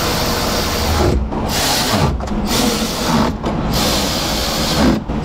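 Cordless ratchet running in short bursts, about four runs of roughly a second each with brief pauses, driving small 10 mm bolts home.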